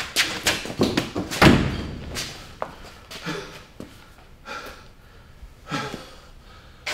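A door slammed shut with a heavy thud about a second and a half in, after a quick run of knocks and bumps. Then come a few heavy breaths, like panting after running.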